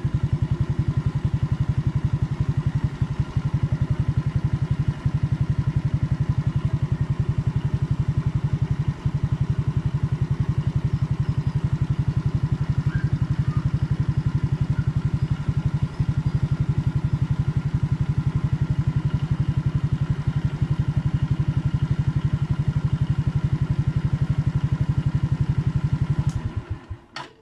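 Suzuki Raider J115 Fi's fuel-injected single-cylinder four-stroke engine idling steadily just after starting, then shut off near the end and dying away within about a second.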